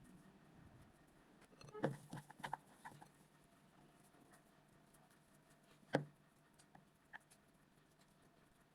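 Quiet kitchen handling: a cluster of light knocks and clicks about two seconds in, then a single sharper knock about six seconds in and a faint click after it.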